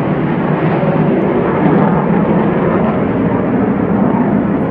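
Israeli Air Force aircraft flying over: loud, steady engine noise from the planes passing overhead.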